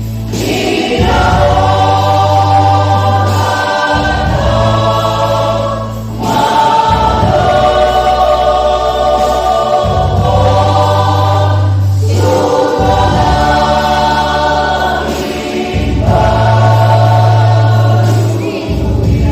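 Church choir singing a Batak Toba hymn in parts, in phrases of a few seconds each, over steady low bass notes that change every two or three seconds.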